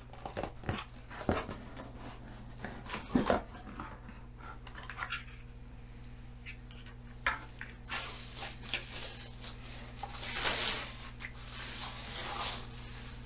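Unboxing: cardboard box flaps and inserts scraping and knocking, then bubble-wrap packaging rustling and crinkling as it is handled, with scattered clicks and a steady low hum underneath.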